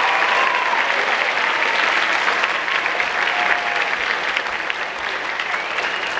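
Audience applauding, the clapping gradually dying down near the end.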